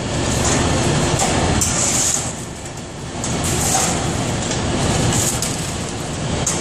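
Steady loud rumble of a wood-fired biomass boiler with its firebox door open. Several brief high scrapes and clanks come from a steel poker worked against the firebox.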